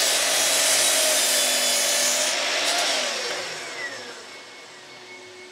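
Mitre saw running and crosscutting a wooden board. About two and a half seconds in the cut ends and the motor winds down, its whine falling away.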